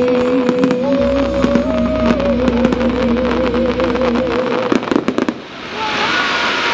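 Fireworks finale: many rapid cracks and bangs of bursting shells over a long held, wavering final note of the show's music, which stops about five seconds in. Then a steady broad hiss of crowd applause with a few whistles.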